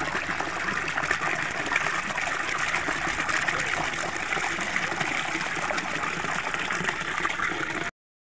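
Fountain water pouring in a steady stream from a clay jar's mouth and splashing onto rocks, a constant rushing splash that cuts off suddenly near the end.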